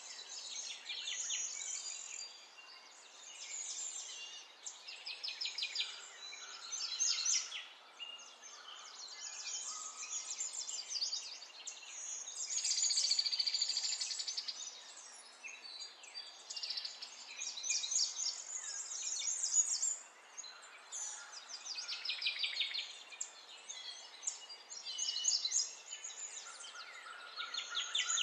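Birds singing: a continuous string of high chirps and fast trills, phrase after phrase with short pauses, over a steady light hiss.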